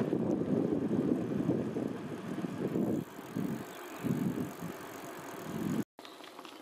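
Wind rumbling on the microphone during a bicycle ride, rising and falling in gusts. It breaks off briefly near the end and comes back quieter, with a few light clicks.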